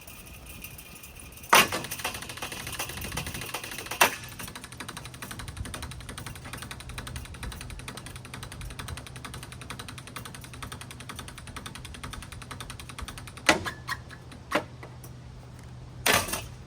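Ceiling fan running with a steady hum and a rapid, even clatter, hit hard several times: a sharp bang about a second and a half in, another about four seconds in, and a cluster of bangs near the end.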